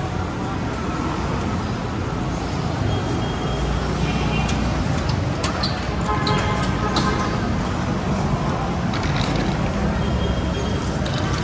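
Busy city street ambience: a steady rumble of road traffic and vehicle engines, with scattered voices of passers-by.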